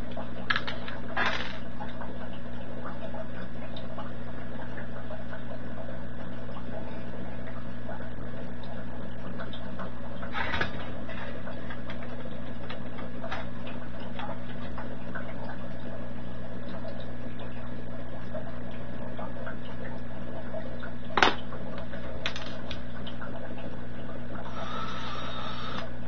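Small clicks and taps of a screwdriver and small hardware against a sheet-metal box as relay boards are fitted, over a steady low hum. One sharper click comes about two-thirds of the way through, and a short scratchy rasp comes near the end.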